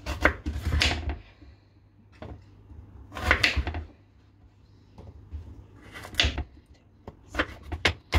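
Kitchen knife cutting raw carrots and turnips into small cubes on a cutting board: irregular knocks of the blade through the vegetable onto the board, coming a few at a time with pauses of a second or two between.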